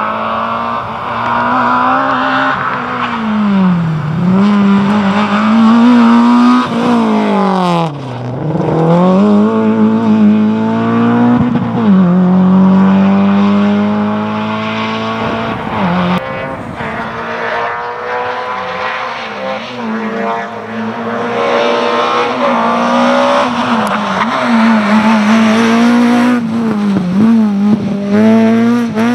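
Rally car engine running hard at high revs. The pitch drops sharply several times and climbs back each time as the driver lifts, brakes or shifts and then gets back on the throttle.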